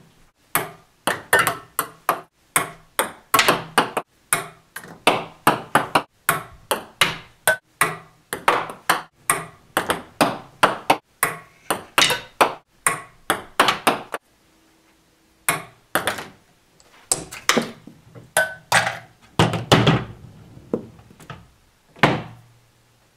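A plastic ping-pong ball bouncing on wooden boards and ramps, over and over in quick runs of sharp clicks that fade as the bounces die away. It goes briefly quiet, then a few more bounces and a couple of heavier knocks come near the end.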